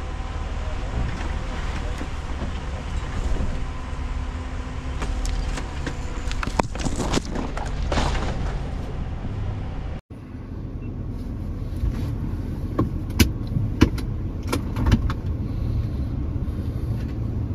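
SUV driving slowly over a rough dirt trail, its engine a steady low rumble under road and wind noise. About ten seconds in, the sound cuts abruptly to inside the cab, where the low engine hum runs under scattered sharp knocks and rattles as the vehicle jolts over bumps.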